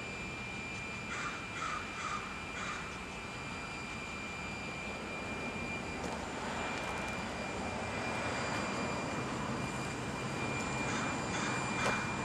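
A steady, heavy engine drone that swells a little from about halfway through, with a crow cawing four times in quick succession near the start and a few more times near the end.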